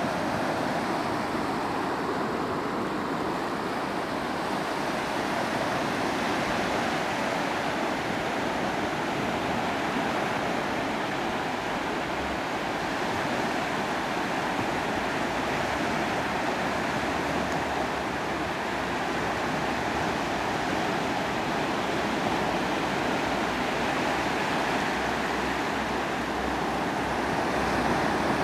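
Small sea waves breaking and washing up over a flat sandy shore: a steady hiss of surf.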